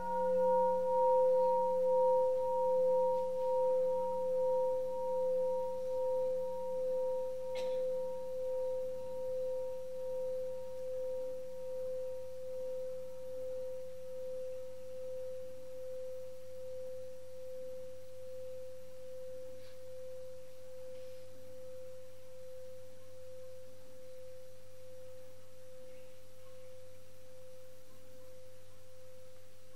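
Buddhist bowl bell ringing out after a single strike: one clear tone with fainter higher overtones that wavers in loudness as it slowly fades. A faint click about eight seconds in.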